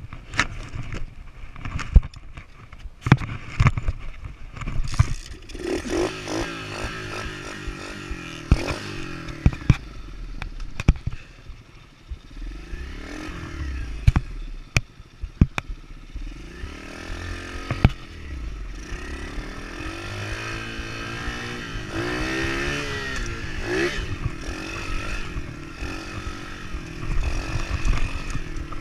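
110cc pit bike's four-stroke single-cylinder engine being ridden, revving up and falling back again and again as the throttle is worked, with sharp knocks and rattles from the bike over rough ground.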